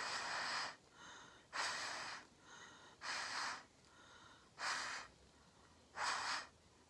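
Someone blowing hard through a straw onto wet acrylic paint: five sharp puffs about every second and a half, with quieter breaths drawn in between.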